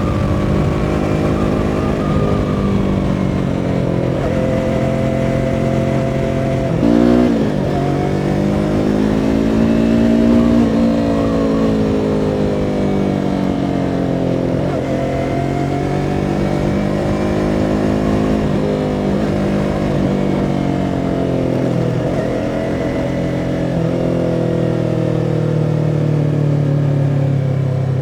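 2017 Yamaha R3's 321 cc parallel-twin engine under way, its pitch rising and falling again and again as the bike accelerates, shifts and slows. About seven seconds in the pitch dips and jumps sharply.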